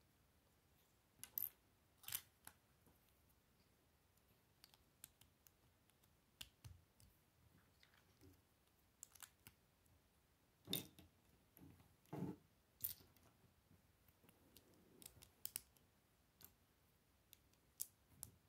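Small plastic Lego bricks clicking as they are handled and pressed together, in irregular soft clicks with a few louder snaps about two thirds of the way through.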